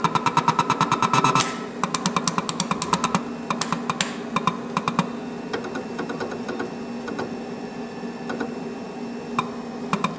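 Vinyl cutter being jogged from the computer keyboard to line its LED pointer up on a registration mark: a fast run of clicks with a short motor buzz for the first second and a half, then separate clicks for a few seconds, only a few after that, over a low steady hum.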